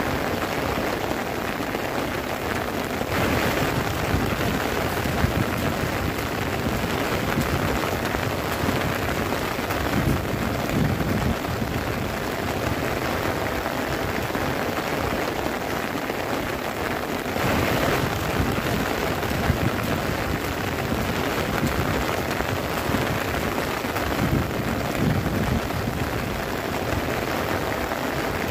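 Steady rain falling on a tent, swelling briefly a few seconds in and again about halfway.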